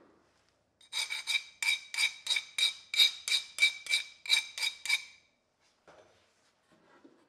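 A steel file scraped quickly back and forth across the edge of a hardened high-carbon bearing-ball Damascus blade, about fourteen strokes at roughly three a second, each with a ringing tone from the steel. This is a file test of the blade's hardness after the quench.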